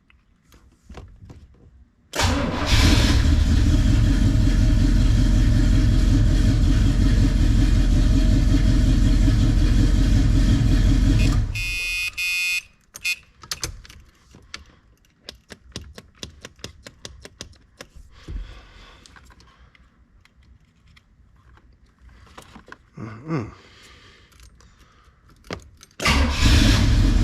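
A 1981 Oldsmobile Cutlass engine starts and runs steadily for about nine seconds, then is shut off, followed by a short buzz. After a long lull with light clicks and handling noise, the engine fires up again near the end. It starts straight away after a loose relay wire has been unplugged and plugged back in, which points to a bad connection at that wire rather than a failed relay.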